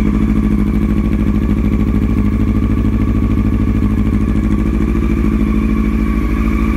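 Yamaha R1's carbureted inline-four idling steadily through a Yoshimura exhaust, warming up after a cold start.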